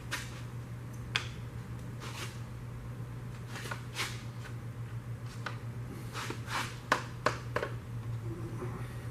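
Light clicks and taps, about a dozen spread irregularly with a cluster near the end, from metal engine parts and tools being handled during a V8 teardown, over a steady low hum.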